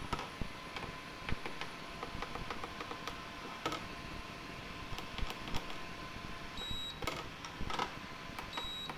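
Small tactile push-button switches on an induction cooktop's control board clicking as they are pressed one after another, being tested for which still work; most of them are faulty. Short high beeps from the cooktop come near the end, and two louder clicks come about seven and eight seconds in.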